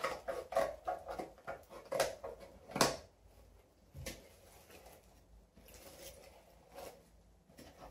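Scissor blade slitting packing tape on a small cardboard box: a quick run of short scratchy strokes and crackles for about three seconds. A dull knock about four seconds in as the scissors are set down, then quieter cardboard handling as the box flaps are opened.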